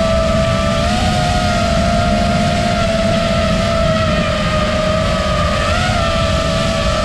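FPV racing drone's motors and propellers whining steadily, the pitch lifting briefly with throttle about a second in and again near the end, over a low rush of wind noise on the onboard microphone.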